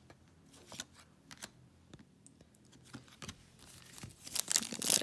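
Faint clicks and rustles of trading cards being handled and set down, then, about four seconds in, loud crinkling of a shiny plastic trading-card pack wrapper as the next pack is picked up and opened.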